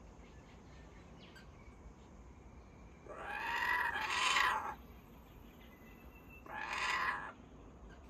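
Laughing kookaburras giving two short harsh calls, a longer one about three seconds in and a shorter one near the end.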